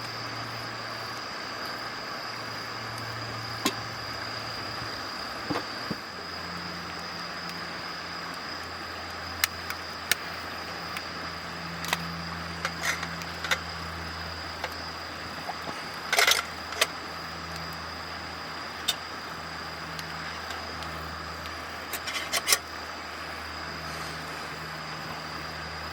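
Campfire crackling, with scattered sharp pops and clicks, the loudest cluster about 16 seconds in, over a steady outdoor background of hiss, a high steady tone and a low hum.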